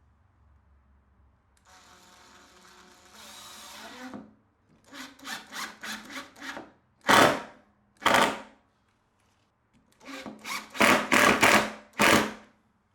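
Woodworking tools on wood. A steady motor-driven run for a couple of seconds, then a series of short rasping strokes in two bursts, with the loudest pair in the middle.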